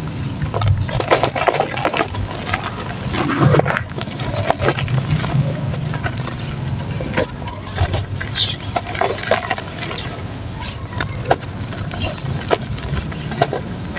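Soft dried mud chunks crumbling and breaking apart in water. Irregular crackles and cracks come several times a second over a steady low rumble.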